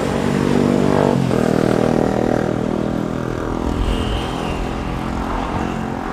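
A motorbike passing close by on the road, its engine note dropping in pitch as it goes past about a second in, then fading away. Low wind rumble on the microphone and road traffic run underneath.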